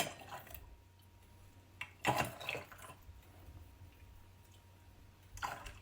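Pine cone syrup poured into glass bottles in short trickles: a click at the start, then two brief pours, one about two seconds in and one near the end.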